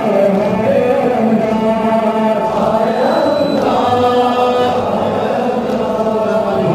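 A crowd of men chanting a Muharram lament (nauha) together, in long, held sung lines.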